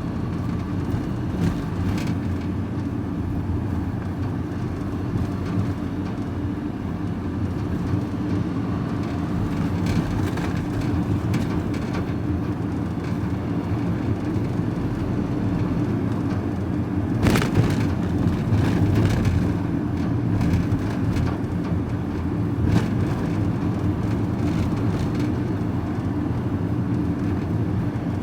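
Engine and road noise of a moving vehicle heard from inside the cab, a steady low drone. A louder clatter comes about 17 seconds in, and a sharp knock a few seconds later.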